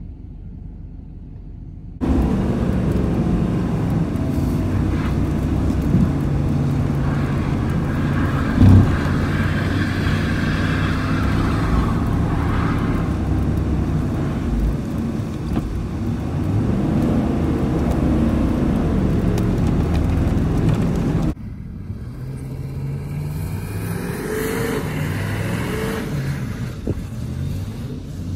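A 1998 Chevy Silverado dually's 6.5-litre diesel V8 revving up and down as the heavy truck is slid around on snow, heard loud from inside the cab. A single sharp knock comes about nine seconds in. Near the end the truck is heard from outside, quieter, still revving as it spins its wheels.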